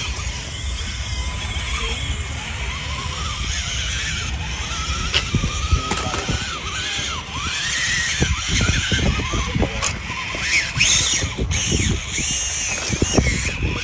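Electric motor and gearbox of a radio-controlled scale rock crawler whining, the pitch rising and falling as it is throttled over rocks. A steady low wind rumble on the microphone lies underneath.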